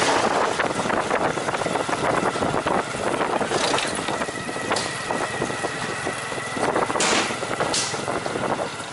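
Riding in a motorbike-pulled tuk-tuk, heard from the passenger seat: the motorbike's engine running, the carriage rattling over the road, and passing traffic, with a few short hissing bursts.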